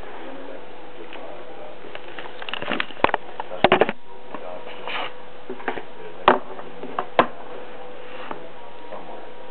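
Handling noise: a few sharp clicks and short rustles over a steady hum.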